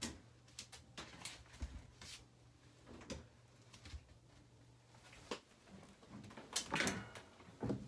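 Laundry being handled: clothes pulled out of a top-loading washer and dropped into a plastic basket, with scattered light knocks and cloth rustling. The loudest rustle comes near the end, as fabric is handled close by. A low steady hum runs underneath for the first part.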